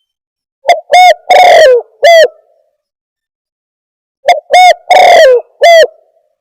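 Spotted dove (tekukur) cooing loudly: two phrases of four notes each, a few seconds apart, the longer third note of each phrase drawn out and falling at its end.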